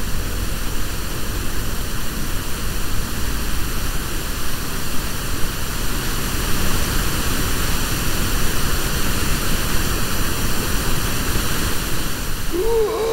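A steady rushing noise, the audio drama's sound effect for the scene transition, with a low rumble cutting off right at the start. Near the end, a brief sliding voice-like sound comes in.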